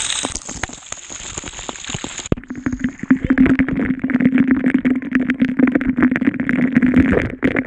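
Pool water splashing and dripping around a camera at the water surface. About two seconds in, the sound turns muffled, as if the microphone has gone under water, with a steady low hum under a patter of sharp clicks.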